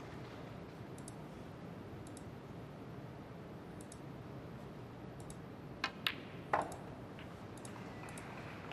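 Snooker shot: a cue tip clicks against the cue ball, then a sharper click as the cue ball strikes a red. A duller knock follows about half a second later, over a quiet arena hush with faint scattered ticks.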